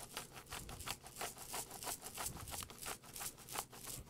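Handheld black pepper grinder being twisted, its burr crunching peppercorns in a rapid, steady run of gritty clicks.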